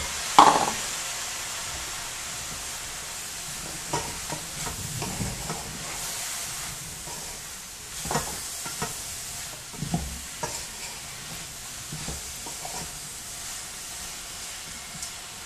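Chopped tomato tipped into a hot pan of chicken gizzards and onion in oil, with a loud knock about half a second in as it goes in, then a steady sizzle while a wooden spoon stirs, clacking against the pan now and then.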